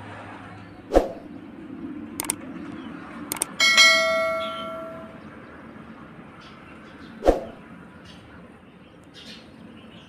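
A ringing metallic clang about three and a half seconds in that dies away over a second or so, with two dull thumps and a few sharp clicks around it.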